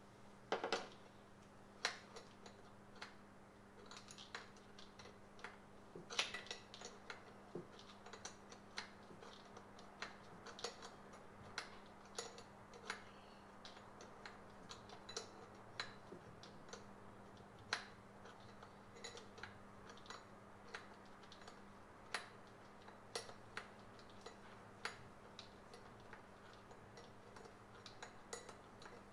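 Hand tools clicking and tapping on metal fittings during a fuel pressure regulator swap: irregular light clicks, often one or two a second, with a louder cluster about a second in, over a steady low hum.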